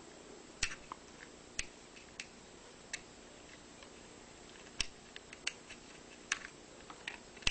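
Sparse small sharp clicks and taps, about ten spread unevenly over several seconds, as the ribbon-cable plug inside an opened fifth-generation iPod is worked loose from its socket.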